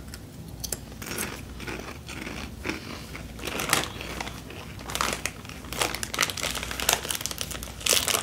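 Crunching and chewing of crunchy rolled tortilla chips, Takis-style, as two people bite in and eat them; irregular crisp crackles throughout.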